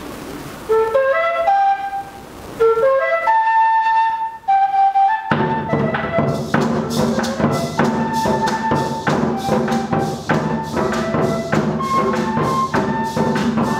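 A folk flute plays a solo melody of quick rising runs. About five seconds in, drums and gourd maracas come in with a fast, steady mapalé rhythm, and the flute carries on above them.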